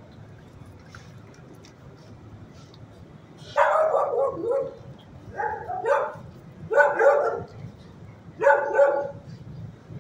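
A dog barking in four short bursts, starting about three and a half seconds in, over a low steady background hum.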